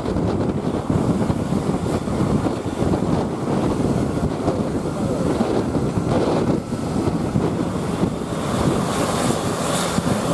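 Wind buffeting the microphone, with steady road and engine noise underneath.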